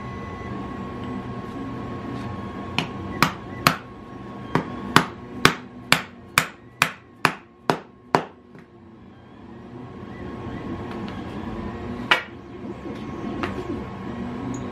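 A mallet knocking a tight, undersized 3D-printed plastic part onto a steel EMT tube. About a dozen sharp knocks come at roughly two a second, followed a few seconds later by one more knock and a lighter tap.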